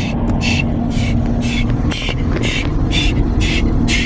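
Automatic car wash machinery running around the car: a steady loud rumble with a hum, and a hissing sweep that pulses evenly about twice a second.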